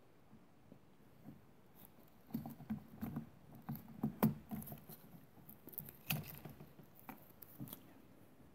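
Small plastic clicks, taps and scrapes as a Poulan Pro chainsaw's plastic choke lever is worked back into its housing by hand, loudest about four and about six seconds in.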